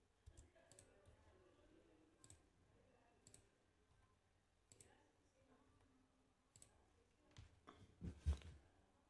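Quiet computer mouse clicks, single clicks spaced about a second apart, with a louder knock near the end over faint room tone.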